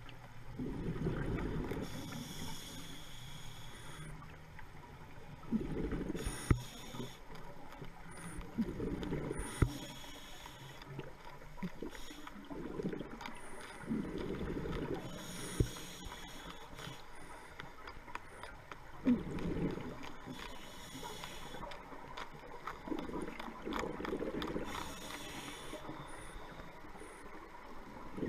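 Scuba breathing heard underwater through a diver's regulator: a hissing inhale alternating with a low bubbling rush on each exhale, about every five seconds, with occasional sharp clicks.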